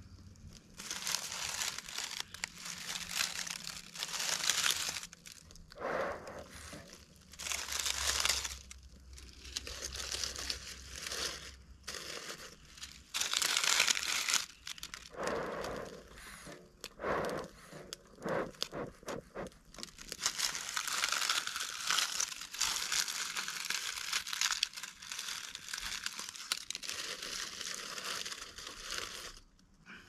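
Bee smoker being lit and worked by hand: irregular bursts of rustling, crackling noise from the smouldering fuel and the bellows, each a second or a few long.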